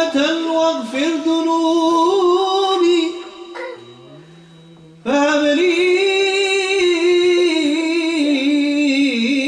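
A man singing an Islamic nashid unaccompanied into a microphone, drawing the words out in long, ornamented held notes. The voice breaks off briefly about four seconds in, then comes back on a long sustained note.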